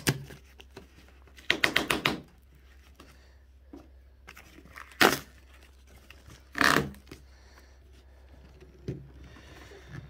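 Clear adhesive packing tape being peeled off a microwave oven's metal case in short rips: a crackling rip about a second and a half in, lasting about half a second, then two brief sharp rips around five and six and a half seconds, with light handling clicks between.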